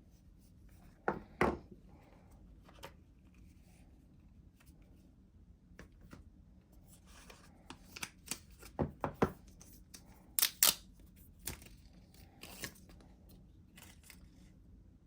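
AirPods Pro box packaging being opened by hand: tearing and rustling of the wrapping with scattered sharp snaps and clicks, the loudest pair about ten and a half seconds in.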